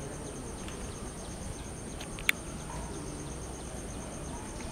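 Outdoor railway platform ambience: insects trill steadily in a high, rapidly pulsing tone over a low background hum, with faint bird chirps. A single sharp click stands out about halfway through. The approaching train is not yet audible.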